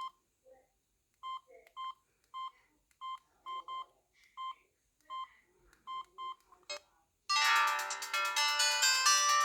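Samsung SGH-T509S mobile phone: a string of short, same-pitched key beeps at uneven intervals, then about seven seconds in a ringtone melody starts playing loudly from the phone's speaker.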